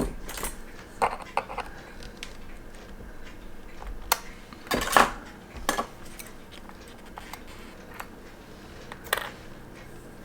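Small metal tools clicking and clinking against a quartz wristwatch's case as it is opened: a handful of scattered light taps, the loudest cluster about halfway through, over quiet room tone.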